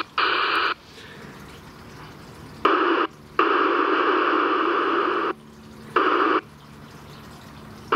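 CB radio receiver hiss and static from the radio's speaker, cutting abruptly between loud and faint several times as the band is tried on FM.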